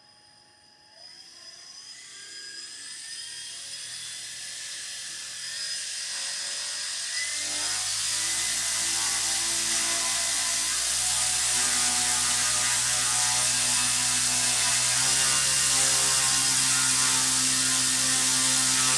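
A2212/13T 1000KV brushless outrunner motor driving a 10x4.5 inch propeller, throttled up: its whine rises in pitch and the propeller's whir grows steadily louder, stepping up in speed about seven, eleven and fifteen seconds in.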